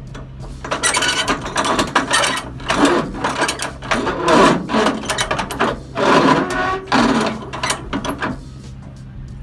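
Flatbed trailer strap winch being cranked tight with a winch bar, giving ratcheting clicks in repeated strokes of a second or two each.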